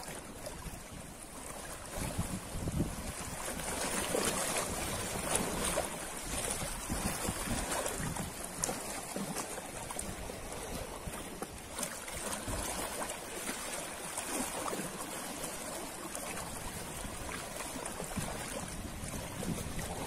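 Ocean surf rolling and breaking: a continuous wash of wave noise that swells over the first few seconds, then holds steady.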